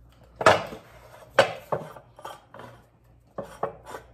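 Irregular sharp metallic clicks and clanks of a wrench and socket on a steel control arm as its bushing nuts are torqued down. There are three loud clanks in the first two seconds, then a quicker run of lighter clicks near the end.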